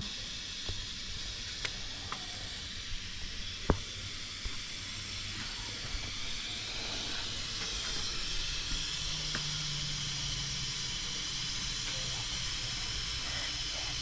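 Steady hiss of a gas-fired flatbread griddle, growing a little louder about halfway through as thin batter spread on the hot plate starts to cook. A few light clicks, the sharpest a little under four seconds in.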